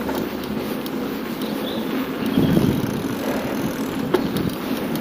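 Steady rolling and wind noise of a bicycle being ridden, with a few sharp clicks and a brief louder swell about halfway through.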